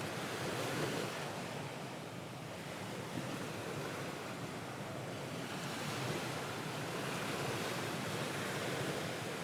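Ocean waves washing on a shore, a steady hiss of surf that swells and ebbs slowly.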